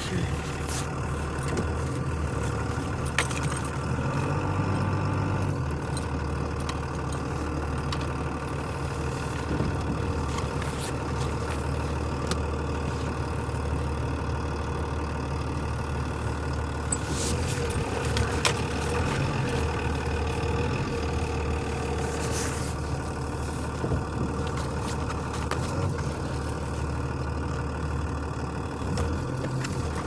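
A vehicle engine idling steadily, with a few light clicks and knocks now and then.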